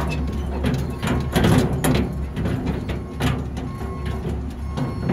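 Engine of a small ride vehicle running with a steady low hum while it is driven, with rattles and knocks from the vehicle, loudest about a second and a half in.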